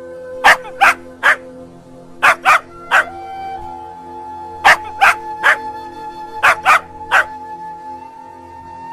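Puppy yipping: twelve short, high yips in four quick groups of three, over soft, slow background music with sustained tones.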